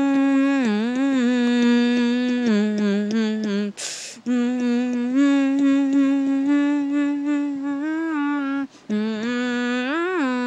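A single voice humming a slow, wordless tune in long held notes that glide gently from one pitch to the next, with a quick breath in about four seconds in.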